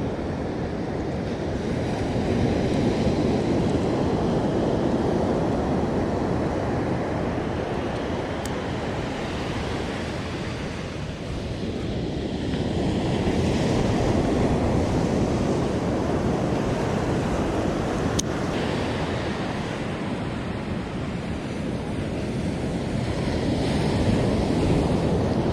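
Ocean surf breaking on the beach, swelling and easing slowly with the waves, with wind buffeting the microphone. A single sharp click about 18 seconds in.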